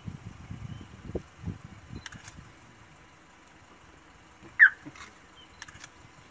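Leopard digging into a burrow: low scuffing and thudding of loose earth for the first two seconds, then a few faint clicks and one sudden, loud, high-pitched squeak that slides down in pitch about four and a half seconds in.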